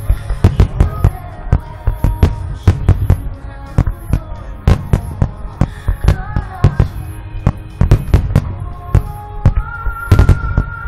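Aerial firework shells bursting in a rapid, irregular string of sharp bangs, several a second, over music with long held notes.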